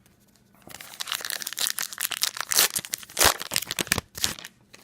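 A trading-card pack's wrapper being torn open and crinkled by hand: a run of dense, irregular crackling that starts about half a second in and stops just before the end.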